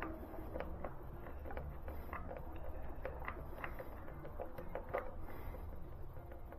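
Light, irregular clicks and taps of hand tools and parts being handled on a motorcycle, about two or three a second, over a low steady hum.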